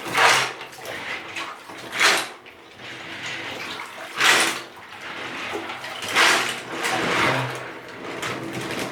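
Soapy water with Lego bricks in it sloshing and splashing, in repeated surges roughly every two seconds.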